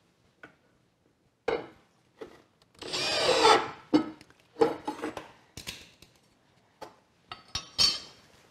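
Makita cordless drill driving a screw through an aluminium bracket into a wooden board, in one short run about three seconds in. Scattered knocks and clatter of handling the parts come before and after it, with another brief burst near the end.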